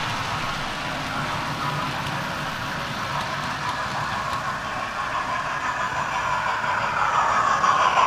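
Model trains running on the layout's track: a steady whirr and rumble of motors and wheels on rail, growing louder near the end as a train of coaches passes close by.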